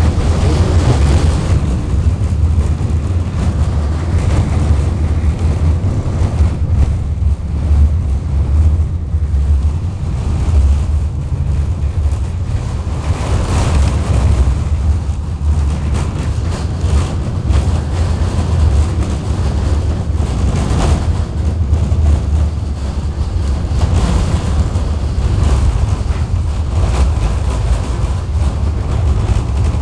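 KTM-19 tram heard from inside the passenger car while it runs between stops: a steady, loud low rumble of the running gear on the rails, with a few louder swells now and then.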